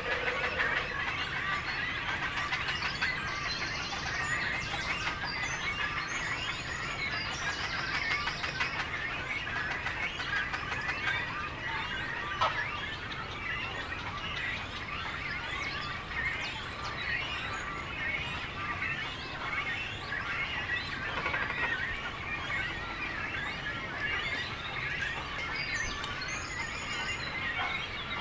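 Many birds calling at once: a dense, continuous chatter of short calls, with a few higher buzzy notes in the first third and again near the end.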